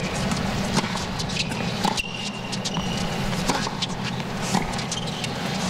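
Tennis rally on a hard court: several sharp racket strikes on the ball, spaced unevenly about a second or so apart, over a steady crowd hum.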